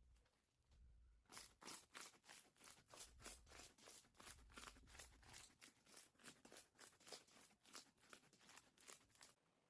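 Slime being squished and poked by hand: a faint, quick run of crackling, sticky clicks, about four or five a second, starting about a second in.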